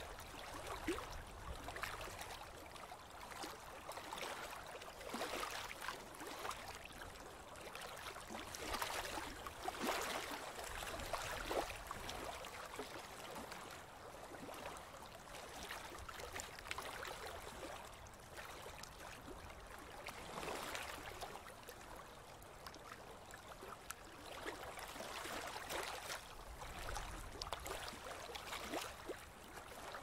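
River water lapping and splashing in small waves, with many short irregular splashes and the level rising and falling in gentle surges.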